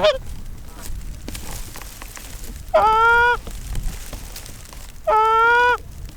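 Two long, loud goose honks about two and a half seconds apart, each with a short upward break at the start before holding a steady pitch.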